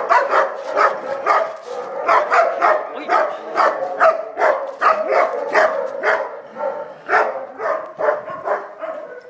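Chow chow barking repeatedly in play, about two barks a second, a little quieter over the last couple of seconds.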